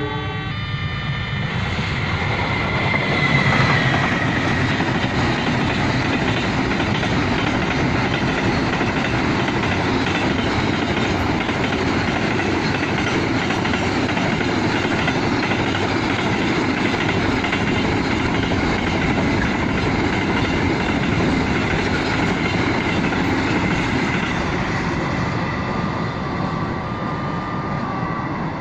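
Freight train passing close by: the steady rumble and rattle of its wagons on the rails, with a thin high wheel squeal that is loudest a few seconds in and lingers. A brief horn sounds at the very start.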